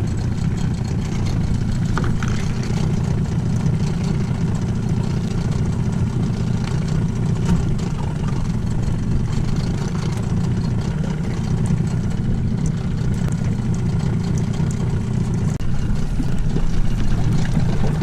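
Mercury tiller outboard motor idling steadily, a low even hum with no change in speed.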